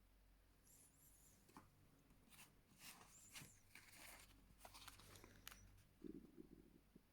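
Near silence, with faint scattered clicks and rustling through the middle and a short low sound about six seconds in.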